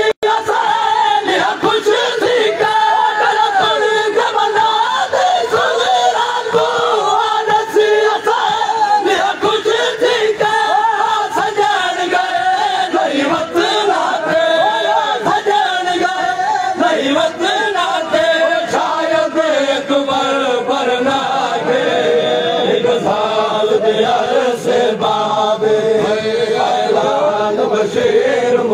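A crowd of men chanting a noha, a Shia mourning lament, together in a sustained sung refrain.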